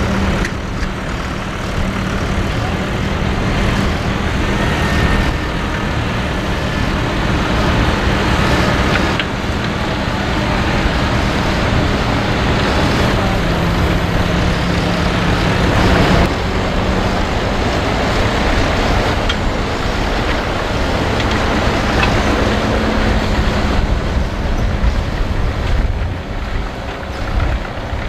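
Fendt 724 tractor's six-cylinder diesel engine running steadily while working a Gregoire Besson six-furrow reversible plough; the engine note dips a little about halfway through, followed by a single clunk.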